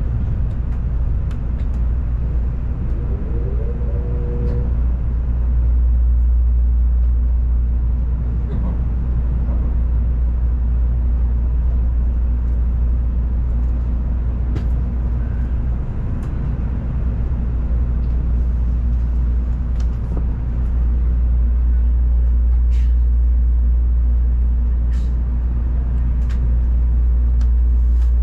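Cabin noise inside an N700-series Tokaido Shinkansen train under way: a steady low rumble with faint scattered clicks.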